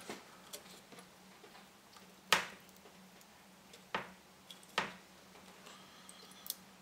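Sharp clicks and taps of a plug-in upper RAM board being pressed by hand onto the chip sockets of a ZX Spectrum motherboard, its pins not yet seating. Three distinct clicks, the loudest about two seconds in, with a few fainter ticks between them.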